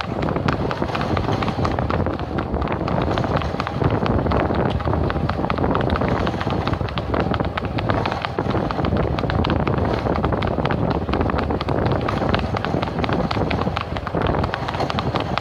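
Steady running noise of a motor vehicle keeping pace, with wind on the microphone, and a horse's hooves clip-clopping on the paved road underneath.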